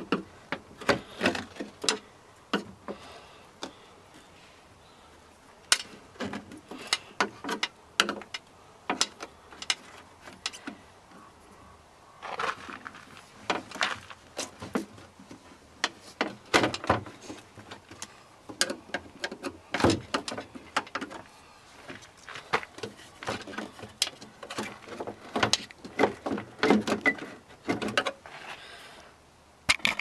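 Inner door panel of a 2001 VW Beetle being pried and pulled away from the door frame and the sealant around its edge: irregular clicks, snaps and knocks, coming in clusters with short quiet gaps between.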